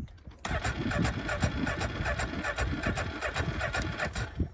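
Snowmobile engine being cranked by its electric starter for about four seconds, turning over in an even rhythm but not firing up. It is a hard start: the engine almost catches but does not run.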